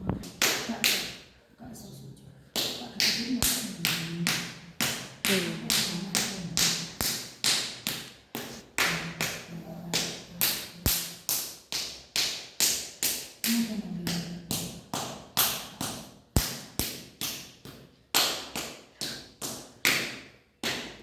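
An open hand slapping repeatedly on a person's body during a ruqyah treatment, about two to three sharp slaps a second. There are short breaks near the start and near the end.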